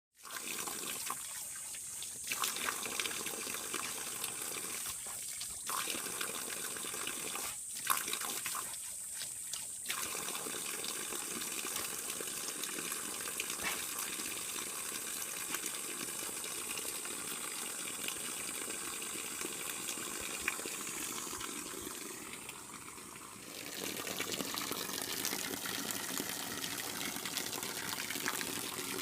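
Water from a handmade waterfall pouring steadily and splashing into a pool, dipping briefly about three quarters of the way through before picking up again.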